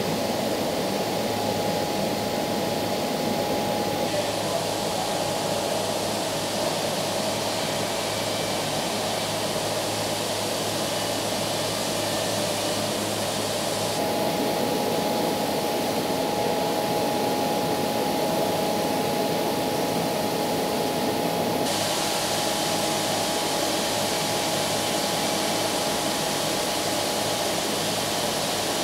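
KÜNDIG Brilliant wide-belt sander running with its dust extraction while sanding teak plank flooring: a steady rushing noise with a steady whine and a low hum through it. The noise changes character abruptly a few times.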